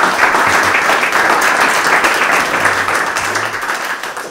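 Audience applauding steadily, tapering slightly near the end.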